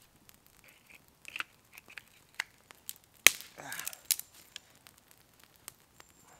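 Freshly lit kindling fire of birch bark and thin twigs crackling, with scattered small pops and one sharp crack about three seconds in.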